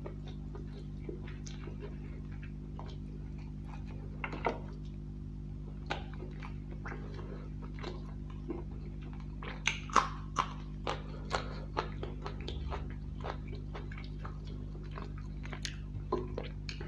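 Close-up eating of chicken and egg curry by hand: wet squishing as fingers tear the chicken and work the curry, and chewing with scattered sharp wet clicks, a quick run of them about ten seconds in. A steady low hum runs underneath.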